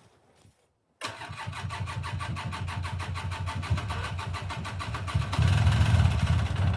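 After about a second of near silence, a 1996 Polaris Sportsman 400 ATV engine, a liquid-cooled two-stroke, is being started, with a steady rapid pulse. It gets louder about five seconds in.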